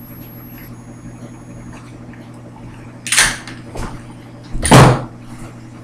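A door opening and closing: a short noisy rattle about three seconds in, then a louder burst near five seconds, over a steady low hum.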